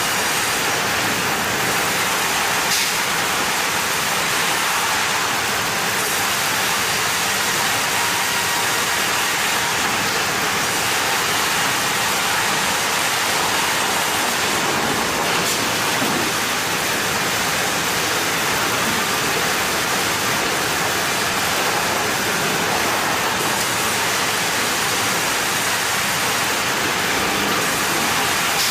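Sawmill machinery running with a steady, even rushing noise, without any rhythm or distinct cuts.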